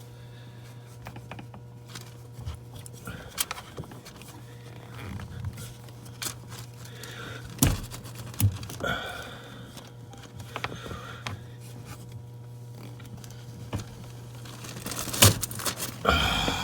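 A strap wrench scraping, slipping and clicking against a stuck diesel engine fuel filter, with scattered knocks on the surrounding parts and a couple of brief grunts of effort, over a steady low hum. The filter is on too tight and the strap wrench is failing to turn it.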